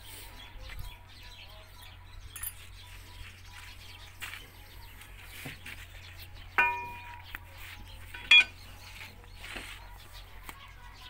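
Metal tools and the starting handle clanking against the iron of a Ruston Hornsby stationary diesel engine while it is made ready for hand-starting. There is one ringing clang about six and a half seconds in and a sharp clink nearly two seconds later, over a low steady hum.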